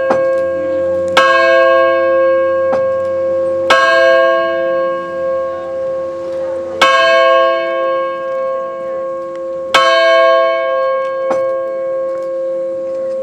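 A large bell, the college's Founders Bell, tolled slowly. There are four full strokes about three seconds apart, with a couple of lighter strokes between them, and each stroke rings on with a steady hum into the next.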